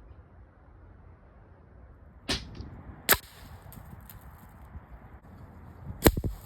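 AEA Challenger .25 calibre PCP air rifle firing two shots about three seconds apart, a pellet and then a slug into stacked birch boards: each a sharp crack, the second the loudest. A softer knock comes just before the first shot, and light clicks fall between the shots.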